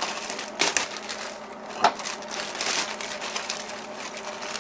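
A clear plastic parts bag crinkling as hands pull it open and take out the parts, with a couple of sharper crackles, about half a second and two seconds in.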